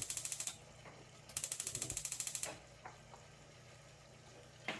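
Gas stove's spark igniter clicking rapidly, about a dozen clicks a second, in two runs: the burner is being lit. The clicking stops about half a second in, then starts again for about a second.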